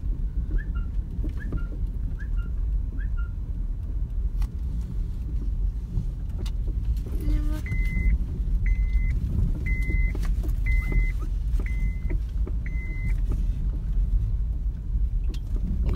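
A car drives slowly over a rough, patchy road, heard from inside the cabin: a steady low rumble of road and engine noise. Midway, six short high beeps sound about a second apart.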